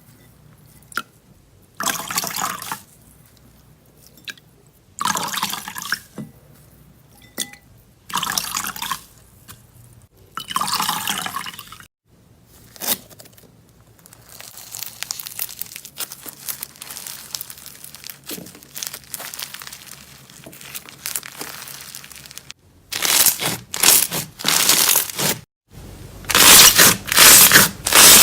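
Hands working a soft ASMR material such as slime or soap, with no talking. A series of separate wet, noisy strokes comes about every three seconds, then a softer crackly stretch, then fast, louder crunching strokes near the end.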